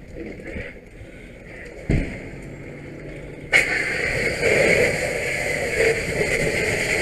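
A fire hose stream opens up about halfway through with a sudden, loud, steady rush of water striking the burning SUV, with steam billowing off it. Before that, quieter noise and a single thump about two seconds in.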